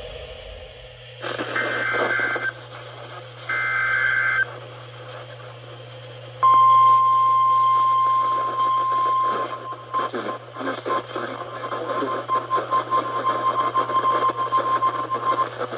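NOAA Weather Radio alert heard through a receiver with static: two short buzzing SAME data bursts, then the steady 1050 Hz warning alarm tone for about nine seconds that flutters and breaks up toward the end. Together they signal the start of a new emergency alert message.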